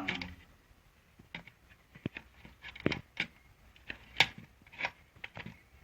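Irregular small clicks and knocks of hand tools and plastic parts being handled while a juicer is taken apart.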